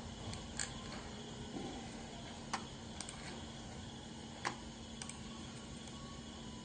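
About five sharp, irregularly spaced computer mouse clicks while selecting a file on a laptop, over a steady faint hum.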